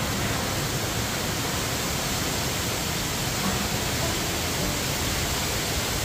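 A tall waterfall's steady, even rush of falling water.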